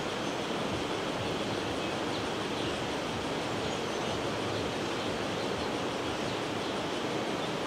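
Steady rushing outdoor background noise, even and unbroken, with no distinct calls or events standing out.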